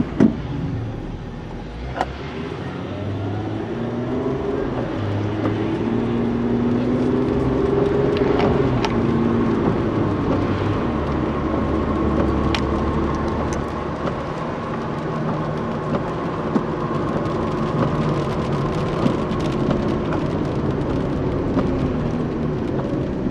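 Car engine and road noise while driving, the engine note rising and falling as the car speeds up and slows, with a few sharp clicks.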